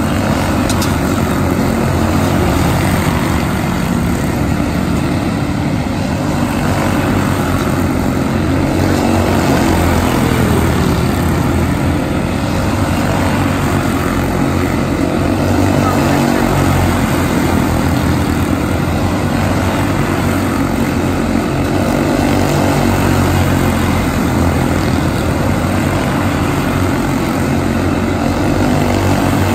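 A pack of quarter midget race cars racing around a small oval, their small engines buzzing together in a loud, steady drone that swells and fades a little as cars pass.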